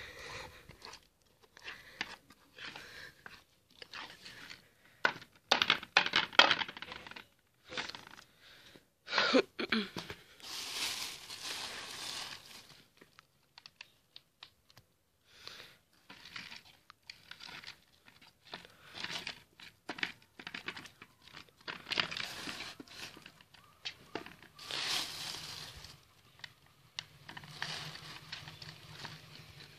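Irregular rustling and crinkling handling noises with long, heavy breaths close to the phone microphone, while dry dog-food kibble is mixed into a thick flour-and-water mash.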